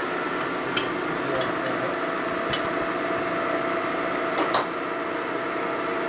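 Lagun vertical milling machine running with a steady hum made of several constant tones. A few light clicks sound about a second in, halfway through, and a second and a half before the end, as the table is worked.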